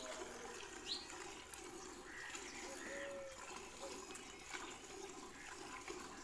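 Milk squirting in streams into a steel bucket as a cow is hand-milked, a steady pulsing splash. A few short high chirps sound in the first three seconds.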